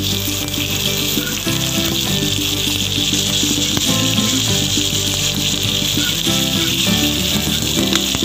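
A whole pomfret and minced garlic frying in hot oil in a non-stick pan, sizzling steadily throughout, under background music with changing notes.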